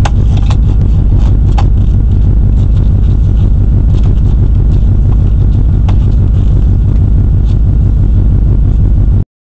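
A 1996 Buick Roadmaster's 5.7-litre LT1 V8 running at a steady idle, heard inside the cabin as a loud low rumble, with a few light clicks in the first two seconds; it cuts off abruptly near the end.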